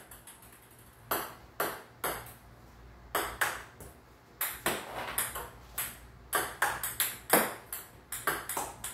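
A table tennis ball being struck with a paddle in repeated backhand topspin strokes and bouncing on hard surfaces. It makes a string of sharp clicks at an irregular pace, often in quick pairs.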